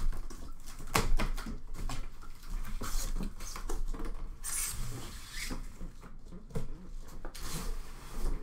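Cardboard shipping case being handled and opened, then a cardboard tray of trading-card tins pulled out of it. Irregular knocks and clicks, with bursts of cardboard scraping and rustling about halfway through and near the end.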